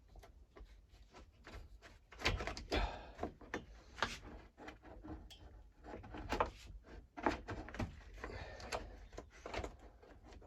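Parts of a petrol hedge trimmer being handled and fitted together: a run of clicks and knocks with scraping and sliding, loudest from about two seconds in and again around six to seven seconds in.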